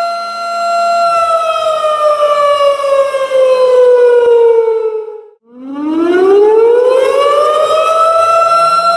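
Siren sound effect: a steady wail that slides down in pitch for about four seconds, cuts out for a moment, then climbs back up to its former pitch and holds steady.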